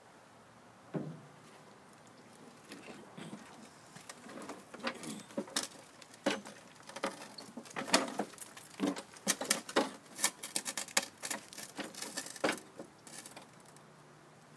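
Handling noise from a Husqvarna walk-behind lawn mower being tipped over to expose its deck: a thump about a second in, then a run of clicks, knocks and rattles of its plastic and metal parts, busiest in the second half.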